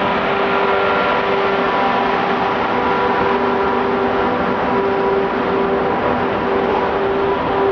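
Freight train of car-carrier wagons loaded with vans rolling past close by, hauled by a Renfe class 269 electric locomotive: a steady, loud rumble of wheels on rails with a few humming tones that fade in and out.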